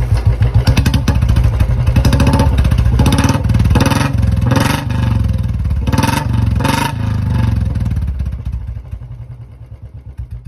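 Royal Enfield Bullet motorcycle's single-cylinder engine running loud and being revved in several short blips, then settling to slower, separate thumps near the end.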